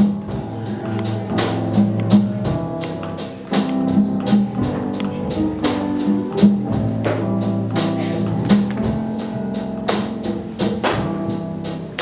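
Gospel praise band playing an instrumental passage: held chords over a steady beat with tambourine and percussion strikes.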